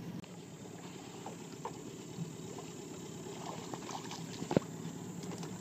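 Quiet river ambience in a small boat while a trotline is hauled by hand, with light scattered knocks and one sharper knock about four and a half seconds in.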